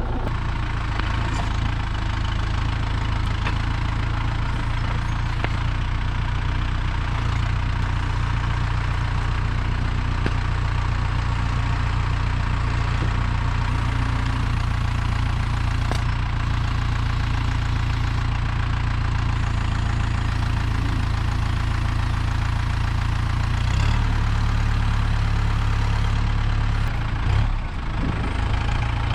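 Tractor engine running steadily under light load while working pallet forks, its drone stepping up slightly a few seconds before the end.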